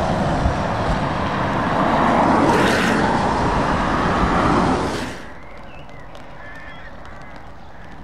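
Volvo FH tractor unit pulling away along a wet road, its engine running under a steady hiss of tyre spray, with a brief sharper hiss about two and a half seconds in. About five seconds in the noise drops off suddenly, leaving quieter road ambience with birds calling.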